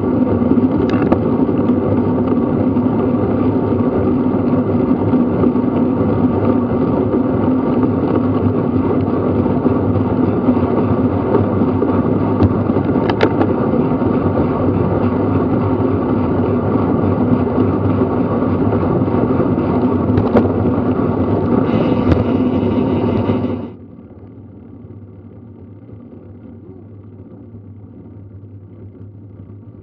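Wind rushing over a bike-mounted action camera's microphone, with tyre noise, while the road bike is ridden at about 20 to 24 mph. It is a loud, steady rush that drops suddenly to a much quieter level about 24 seconds in, as the bike slows to walking pace.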